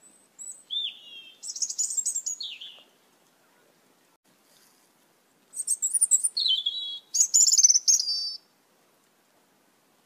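Asian glossy starlings calling: high whistled notes that glide up and down, in two bursts of two to three seconds each, the second beginning about five and a half seconds in.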